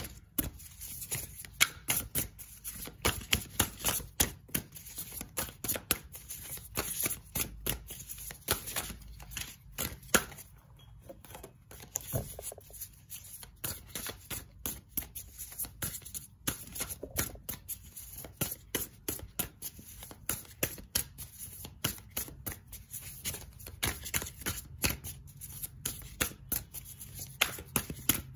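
A 78-card Angel Wisdom Tarot deck being shuffled by hand: a steady run of quick card flicks and slaps, with a short pause about eleven seconds in.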